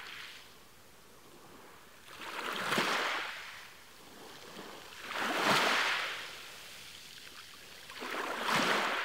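Small waves washing onto a beach, three of them about three seconds apart, each swelling and then fading away.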